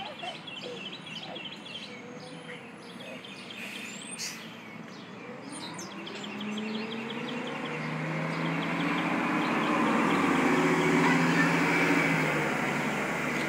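A school bus engine approaching, growing steadily louder through the second half and loudest near the end. Small birds chirp in quick repeated series in the first half.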